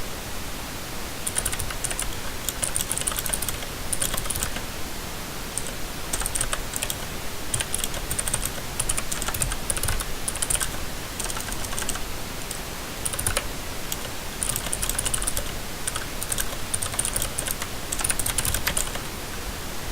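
Typing on a mechanical keyboard with clicky blue switches fitted with rubber O-rings: runs of sharp key clicks with short pauses between bursts.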